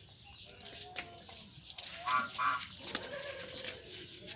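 Birds calling, with two short honking calls about halfway through, over light rustling and clicking as a cast net is picked through by hand.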